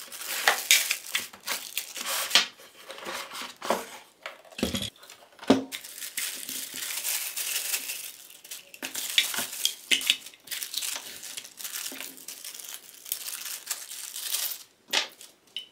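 Plastic wrapping bags crinkling and rustling as they are handled and opened, with scattered clicks and two dull knocks about five seconds in.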